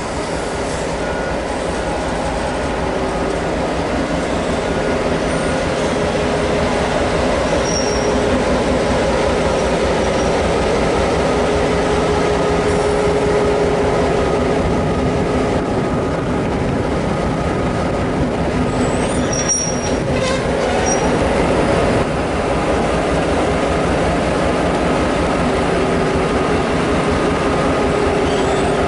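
Diesel-electric locomotive 42103's engine running steadily as the locomotive moves slowly past at close range, with a couple of brief high squeaks.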